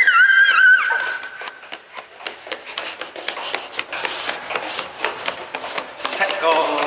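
A small child's high-pitched squeal of delight for about a second and a half, then quick running footsteps slapping on a tiled floor with breathy laughing puffs, and a short voice near the end.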